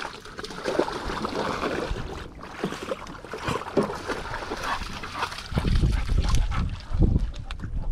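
Splashing and sloshing in shallow water as a person and a dog wade and a plastic fishing kayak is slid off its launch cart, with scattered knocks and clicks. A heavy low rumble sets in about five and a half seconds in.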